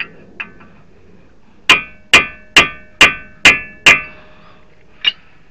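Six hammer blows on a chisel, about two a second, staking the collar of a Honda Fit's front axle nut, each strike ringing metallically. A couple of lighter taps come before them and one after.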